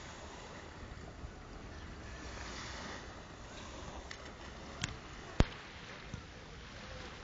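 Steady wash of small sea waves lapping at the shoreline, with wind on the microphone. Two sharp clicks come about five seconds in, the second louder.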